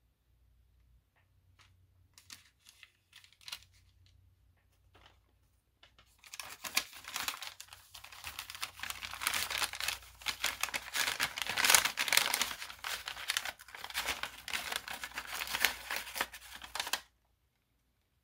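Brown kraft paper crinkling and rustling as hands unwrap a small paper-wrapped package. A few light handling taps come first, then about six seconds in the paper noise turns loud and dense, and it stops abruptly near the end.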